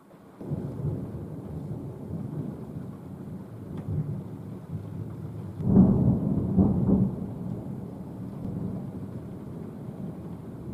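Rolling thunder: a rumble starts suddenly about half a second in, swells to two loud peals a little past halfway, then rumbles on and slowly fades.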